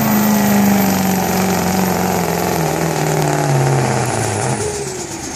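Duramax V8 turbodiesel of a pulling pickup running hard under load while dragging a pulling sled. Its engine pitch holds high, then drops in steps over the second half and fades near the end as the pull slows down.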